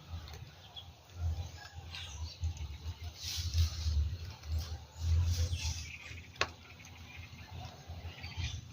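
Bird wings flapping and faint chirps over an uneven low rumble, with one sharp click about six and a half seconds in.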